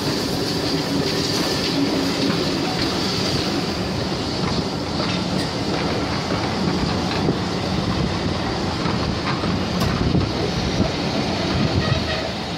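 Railway passenger carriages rolling past at close range on a curve: a steady rumble of wheels on rail with clicks over the rail joints, and a high wheel squeal that fades after the first few seconds.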